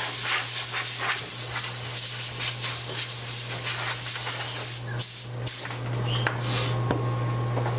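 A blast of compressed air hissing steadily for about five seconds, then a few shorter spurts, blowing broken glass debris off the iPad.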